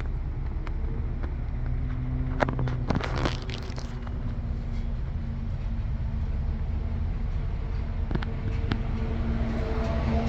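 A vehicle engine running steadily at idle, with a few clicks and knocks about two and a half to three and a half seconds in.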